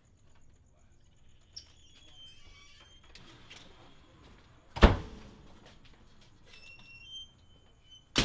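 A metal security screen door opening and banging shut with one sharp, loud bang about five seconds in, with a brief ring after it.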